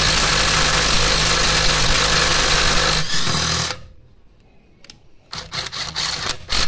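Parkside PDSSA 20 Li A1 cordless impact driver hammering steadily on a 17 mm impact socket, working a wheel bolt tightened to 180 Nm until it breaks loose. The hammering stops about three and a half seconds in, followed by a few short bursts.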